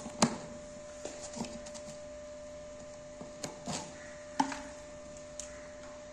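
Plastic tubs and lids being handled beside a digital scale: scattered knocks and taps, the loudest shortly after the start and another about four and a half seconds in, over a steady electrical hum.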